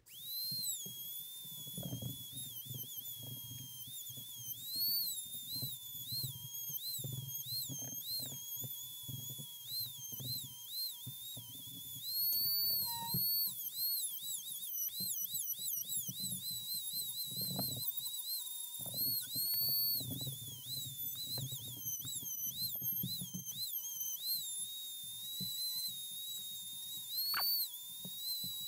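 A small high-speed power tool cutting a slot in a sheet-metal switch plate. Its motor gives a high whine that wavers and dips in pitch again and again as the cut loads it, with uneven rough cutting noise underneath.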